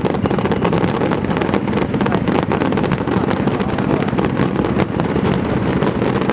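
Fireworks display going off in a continuous barrage: a dense low rumble of shell bursts, with many sharp crackles through it, and wind buffeting the microphone.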